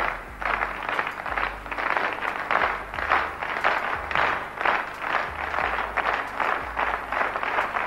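Crowd clapping in unison, about two to three claps a second, with a faint low hum underneath.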